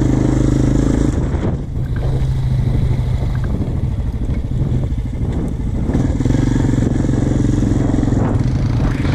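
Single-cylinder four-stroke Honda ATV engine running under throttle while riding over loose coal-waste gravel. Its steady note eases off about a second and a half in and picks back up about six seconds in. A rough noise of wind and tyres on the gravel runs beneath it.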